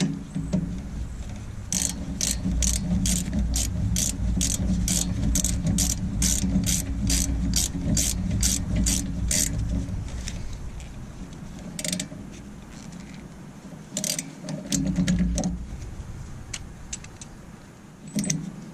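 Hand ratchet clicking in steady strokes, about three a second, while a rear brake caliper bolt is run down and tightened. A few scattered clicks and knocks follow over a low, steady rumble.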